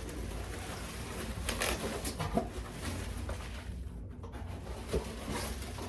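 Handling noises: a few short clicks and rustles of plastic toys and packaging over a steady low hum.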